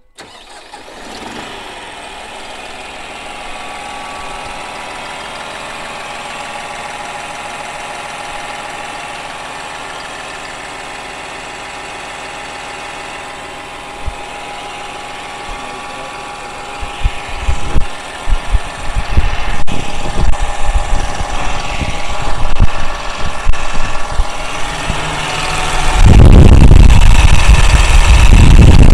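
New Holland 5620 tractor's common-rail (CRDI) diesel engine idling smoothly and quietly. A little past halfway, loud irregular low buffeting joins it, and near the end this becomes a heavy, steady low rush.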